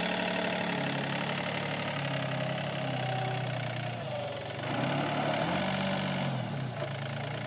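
Quappen Q27 mini loader's engine running as the machine moves, revving up once about five and a half seconds in and then settling back down.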